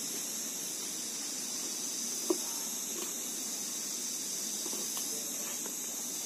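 Steady high-pitched insect chorus, with one sharp click a little over two seconds in and a few fainter knocks as a wooden stingless-bee hive box is handled.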